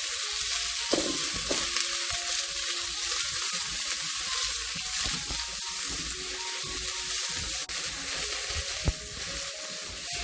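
Sliced green and red bell peppers and onion sizzling in hot oil in a wok as they are stir-fried, with a steady frying hiss and one sharp knock about nine seconds in.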